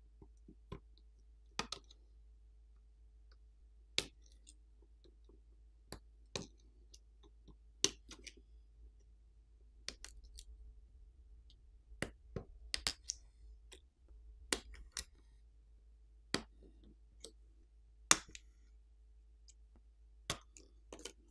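Flex cable connectors being popped off a smartphone main board with a plastic pry pick: a string of sharp, irregularly spaced clicks, with light scraping and tapping between them around the middle.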